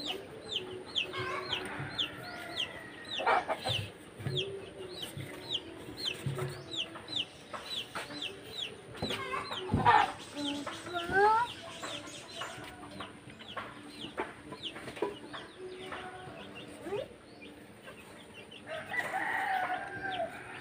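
Chickens in the background: a chick peeping in quick, repeated falling chirps through the first half, with hens clucking now and then. A couple of short knocks, about 3 and 10 seconds in.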